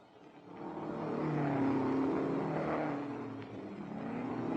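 Racing car engine at high revs on a mountain hill climb, rising out of near silence about half a second in and holding a steady pitch, then swelling louder again near the end.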